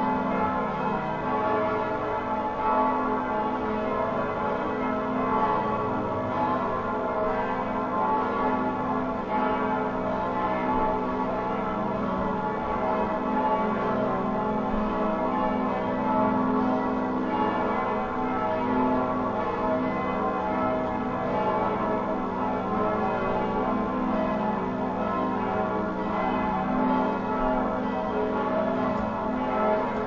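Bells ringing continuously, many tones overlapping and sustained without a break.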